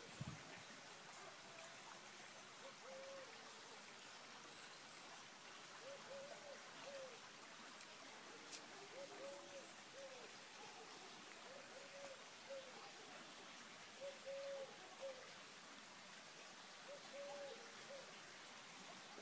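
A dove cooing, soft phrases of two or three notes repeated every few seconds, over the faint steady hiss of a shallow stream.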